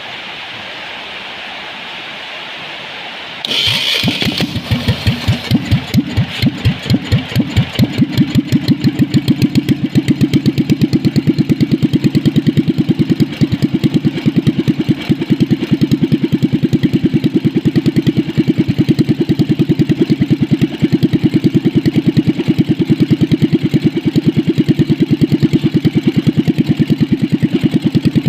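Small stationary diesel engine converted to spark ignition with a carburettor, CDI and coil, starting and running on petrol. About three and a half seconds in it catches and fires unevenly, then settles into a steady idle, its beat likened by the owner to an old British motorcycle.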